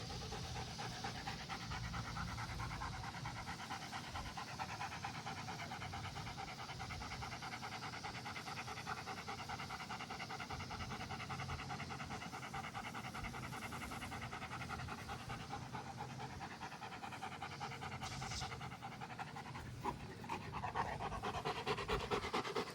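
German Shepherd panting steadily, out of breath from hard play.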